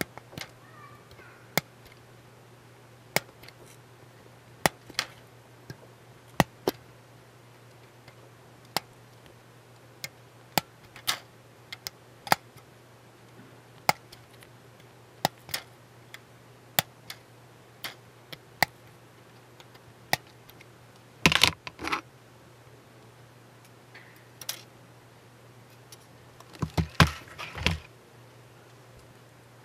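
Sharp single clicks of a hobby knife blade pressing through the tabs of a brass photo-etched railing fret on a hard board, about one a second. Two louder quick clusters of clicks and small handling knocks come about two-thirds of the way through and again near the end.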